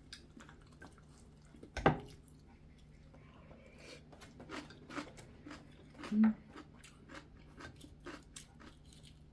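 Close-up eating sounds: chewing, with small clicks of a spoon and chopsticks against a ceramic bowl. One louder clack about two seconds in, and a brief low hum about six seconds in.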